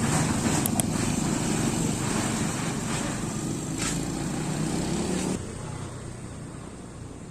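Small motorcycle engine of a homemade motorcycle rickshaw running steadily and slowly fading, then dropping away suddenly about five seconds in.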